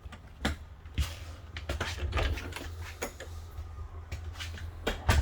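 Scattered knocks and clicks, about five of them, over a steady low hum; the loudest knock comes near the end.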